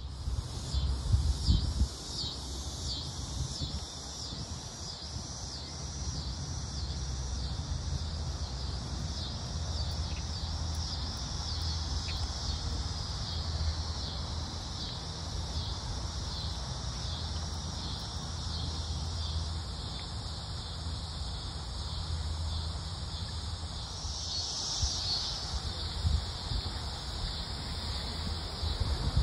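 Insects buzzing in an even, fast-pulsing high chorus, with a low rumble underneath.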